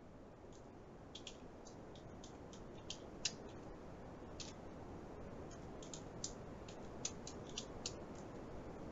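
Faint, irregular keystrokes on a computer keyboard over a low steady hiss.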